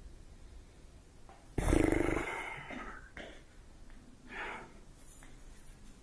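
A person's short, loud, rasping breath sound, like a snort, about a second and a half in, followed by a few fainter short sounds.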